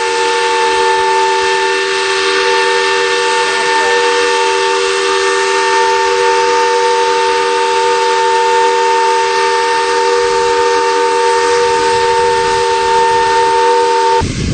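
A chime steam whistle blowing one long, steady chord of several notes over the hiss of steam, then cut off sharply near the end.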